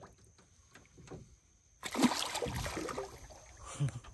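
Water splashing and sloshing, starting suddenly about two seconds in and easing off: a redfish kicking away as it is released into shallow water.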